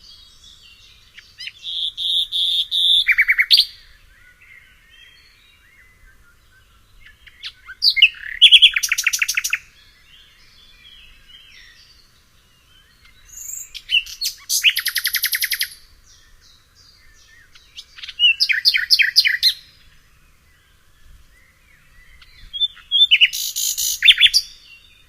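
A songbird sings loud, rapid trilling phrases, each one to two seconds long, about every five seconds, with fainter chirps from other birds between them.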